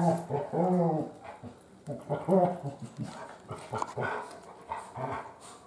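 Adult dog vocalizing in play with a puppy: drawn-out, arching whine-like calls, the longest near the start and again about two seconds in, then shorter and fainter ones toward the end. It is noisy play vocalizing, not a sign of upset or aggression.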